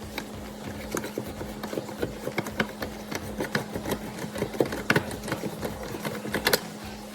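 Threaded plastic bulkhead nuts being unscrewed and handled on an aquarium overflow box: quick irregular clicks and rattles, over a steady low hum.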